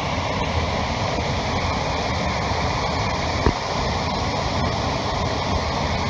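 Meltwater pouring over a low man-made dam spillway several feet high, a steady, loud rushing of falling water. A single brief thump about three and a half seconds in.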